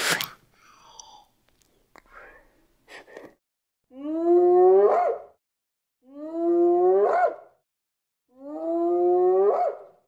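Spotted hyena whooping: three long calls, each rising in pitch and ending in a sharp upward lift, about two seconds apart. A brief loud noise and a few faint sounds come before them.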